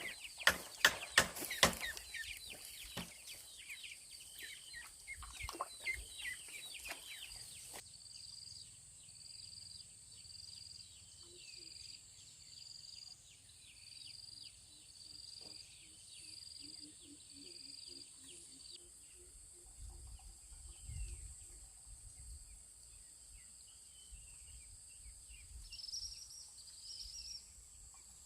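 Chickens clucking and small birds chirping, with a high short call repeating about once a second for several seconds midway. Several sharp knocks come in the first two seconds.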